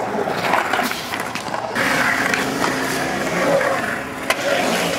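Skateboard wheels rolling over the concrete of a skatepark bowl, a steady rough rumble with one sharp click about four seconds in.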